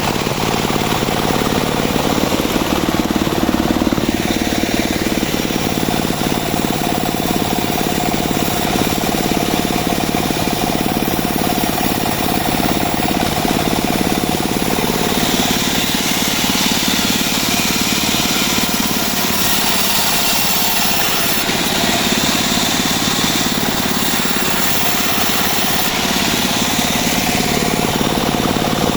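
Engine-driven homemade bandsaw sawmill running steadily while sawing albasia wood. A brighter hiss comes in about halfway through and again near the end.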